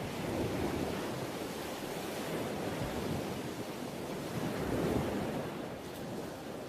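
A soft, even rushing noise with no tune or beat, swelling and fading slowly, most strongly about half a second in and again about five seconds in.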